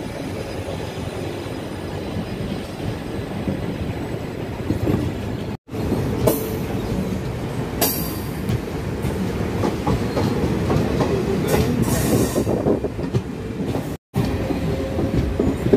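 Circar Express coaches rolling past on the adjacent track: steady wheel-on-rail noise with a few short high squeals, cut by two sudden brief drop-outs.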